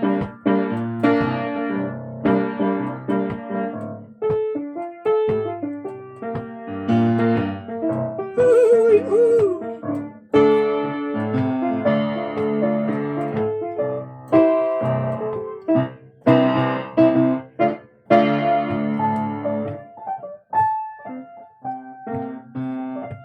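A piano being played solo: sustained chords and melody notes, struck in uneven phrases with short breaks. About eight seconds in, a brief wavering tone rises above the piano.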